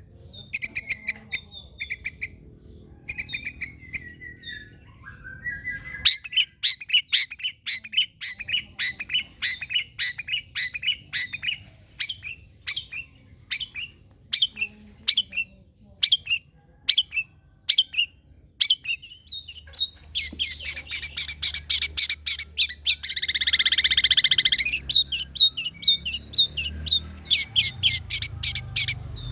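Long-tailed shrike (cendet) singing: quick runs of short, sharp chattering notes, with a harsh rasping call lasting about two seconds roughly three-quarters of the way through.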